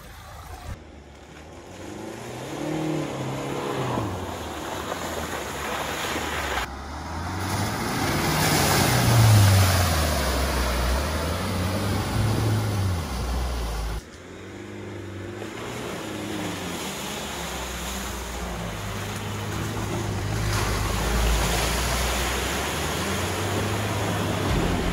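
Land Rover Defender's 2.0-litre diesel engine revving up and easing off as the SUV drives through deep muddy ruts, with tyres sloshing through mud and water. It comes in several short shots, each cutting off abruptly, about 1, 7 and 14 seconds in.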